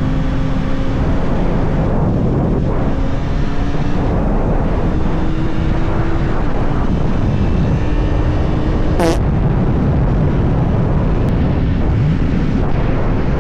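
Steady loud wind and road noise of a vehicle on the move, with a faint engine drone that creeps slowly up in pitch. A brief sharp click about nine seconds in.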